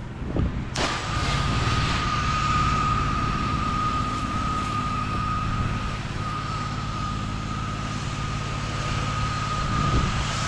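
An engine running steadily under a noisy hiss, with a constant high whine over it. It comes in abruptly at the start.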